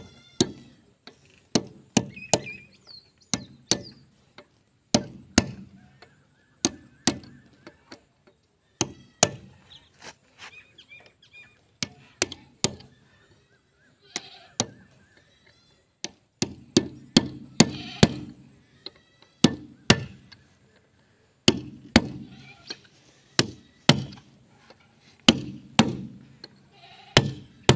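A hammer striking a steel drift held against a tractor's front wheel hub, sharp metallic blows about one or two a second with short pauses, driving the new front-wheel oil seal into its seat.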